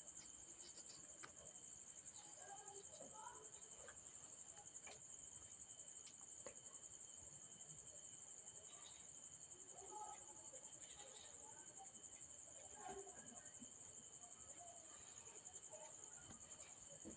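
Faint, steady high-pitched trilling of a cricket, with soft scattered clicks and rustles underneath.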